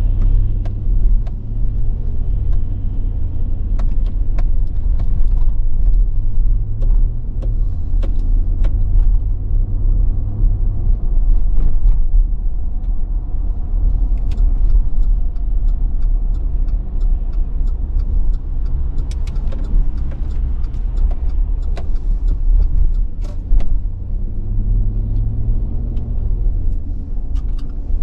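Car being driven, heard from inside the cabin: a steady low engine and road rumble. The engine note shifts a little near the start and again near the end, and scattered light clicks run through it.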